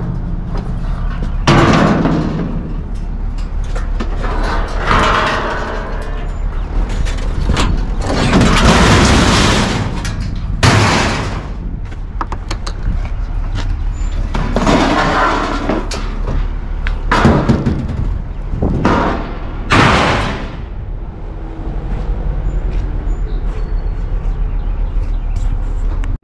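Scrap sheet-metal appliances being pulled from a pickup bed and thrown into a steel roll-off dumpster: loud bangs and clangs of metal on metal every few seconds, some drawn out into scraping. A steady low rumble runs underneath.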